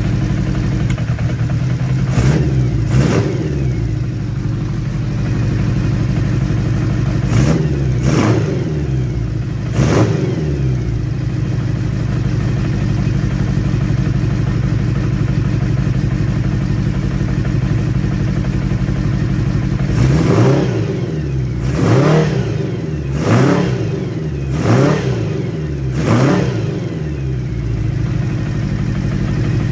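Kawasaki GT550's four-cylinder engine idling steadily and being blipped with short throttle revs, a few in the first ten seconds and then five in quick succession near the end. The idle is even after a carburetor balance, with all four cylinders running well.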